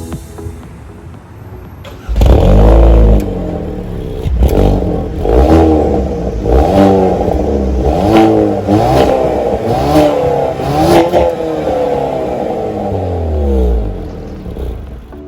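2022 Hyundai Veloster N's 2.0-litre turbocharged four-cylinder engine running, then revved up and let fall again and again from about two seconds in, with sharp cracks between the revs. It settles back toward idle near the end.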